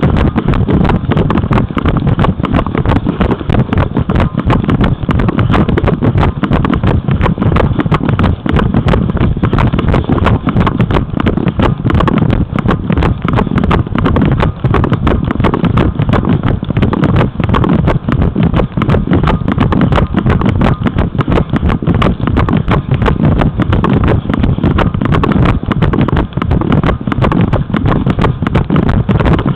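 Wind buffeting the microphone of a head-mounted camera: a loud, steady, low rumble that flutters irregularly throughout.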